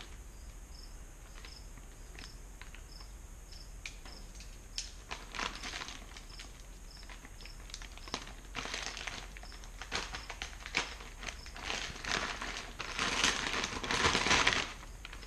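Plastic packaging wrap crinkling and rustling as it is handled and pulled off, with scattered clicks, in bouts that are loudest near the end.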